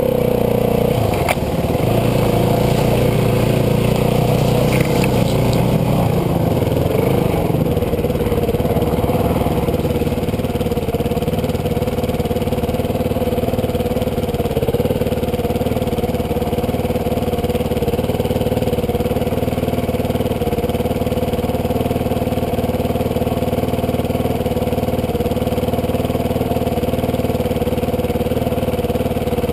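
Yamaha WR450F dirt bike's four-stroke single-cylinder engine running at low revs with some changes in speed over the first several seconds, then idling steadily.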